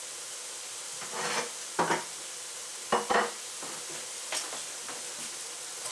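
Chicken hearts and gizzards simmering in a pan with a steady sizzle. A utensil stirs and scrapes the pan in a few short strokes, from about one to three seconds in, and once more at about four and a half seconds.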